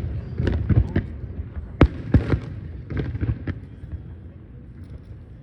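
Aerial fireworks shells bursting in a quick, irregular run of sharp bangs with low rumbling between them, thinning out near the end.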